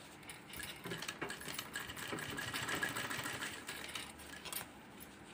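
Sewing machine stitching a zipper onto a folded fabric edge: a fast, even run of needle strokes that starts about half a second in and stops shortly before the end.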